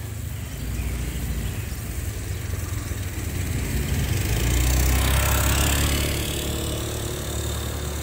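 Street traffic: a steady low engine rumble, with a vehicle passing close and growing louder to a peak about five seconds in, then fading.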